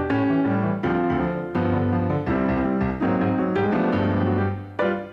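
Piano music, chords struck in a steady pulse a little under a second apart.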